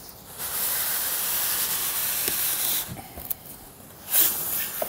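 Styrofoam packing sliding out of a cardboard box: a steady scraping hiss lasting about two and a half seconds, then a shorter scrape about four seconds in.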